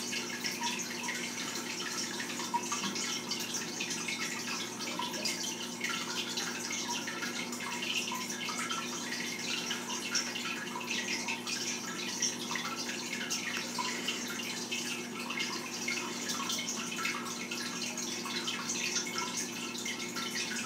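Faint scratching and light ticks of someone drawing by hand, irregular and continuous, over a steady low hum.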